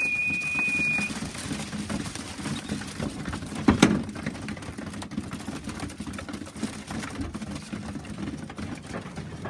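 A pigeon fancier's whistle, one held high note ending about a second in, calling young pigeons to the loft. It is followed by a steady, irregular rattling and shuffling in the loft, with one sharp knock about four seconds in.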